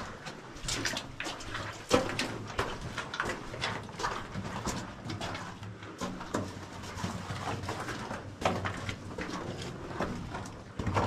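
Footsteps on the rocky floor of a mine tunnel: irregular steps and knocks, the sharpest about two seconds in.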